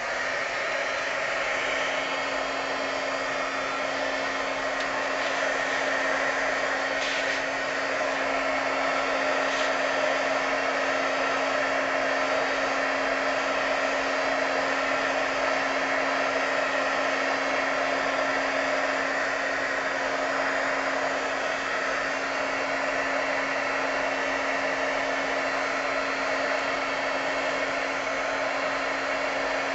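Handheld heat gun running steadily, its fan making a constant blowing noise with a low hum, switched on right at the start.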